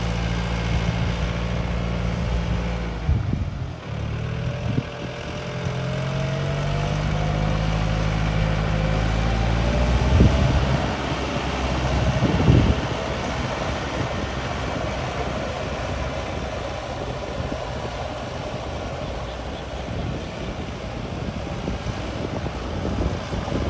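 Yanmar EF725T 72-horsepower diesel tractor engine running while working a field. About three seconds in its note dips, then climbs steadily for several seconds. Two louder thumps come about ten and twelve and a half seconds in, after which the sound turns rougher and noisier.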